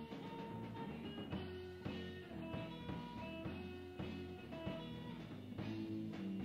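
Rock band playing an instrumental passage with no singing: guitar over bass and drums, with sustained notes and steady drum hits.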